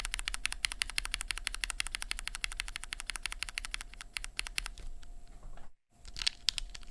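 Mechanical keyboard typing on vintage Cherry MX Black linear switches in an aluminum-plate board with GMK keycaps: a fast, steady run of keystrokes that thins out to scattered key presses about five seconds in.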